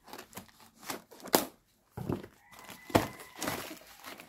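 Scissors cutting through a corrugated cardboard box, then the cardboard being pulled and torn open by hand: a series of irregular crunches and rips, the sharpest a little over a second in and again about three seconds in.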